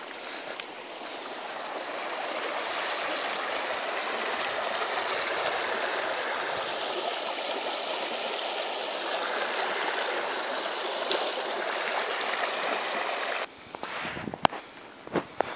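River running high after a flood: a steady rushing of water that grows louder over the first couple of seconds and drops away suddenly near the end, where a few sharp clicks follow.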